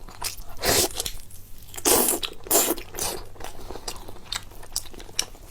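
A person biting and chewing food close to the microphone, with wet mouth sounds. Three louder bites come in the first three seconds, with small clicks of chewing between them.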